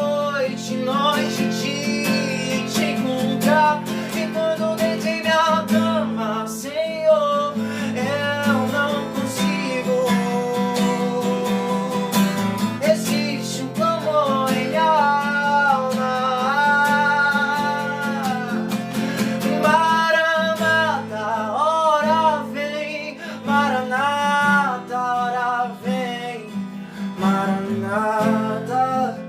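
A strummed acoustic guitar accompanying a sung melody, with long held notes and vibrato in the voice.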